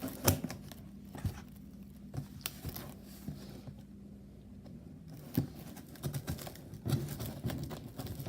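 Scattered light clicks and taps of hands handling a small cardboard box and its packaging. A faint steady hum runs underneath until about halfway through.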